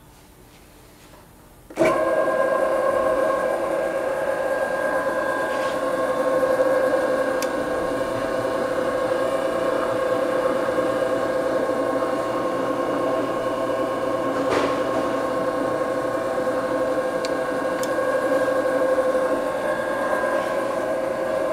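Enco 9" x 20" bench lathe starts up about two seconds in and runs steadily: its motor and drive give a steady whine of several tones, with a few faint ticks.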